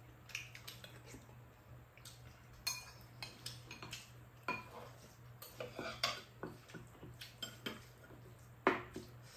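Spoons and metal chopsticks clinking and scraping against ceramic bowls during a meal, in scattered short clicks, the sharpest one near the end.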